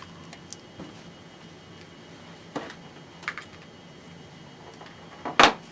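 Scattered light clicks and taps from handling the TV's power cable and plastic parts, with one louder clack near the end.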